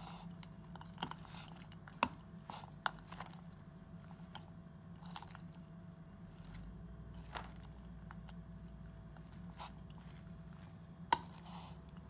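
Shredded cabbage salad being tossed with a fork in a bowl: irregular crunching and rustling of the vegetables, with sharp clicks of the fork against the bowl, the loudest about 11 seconds in. A steady low hum runs underneath.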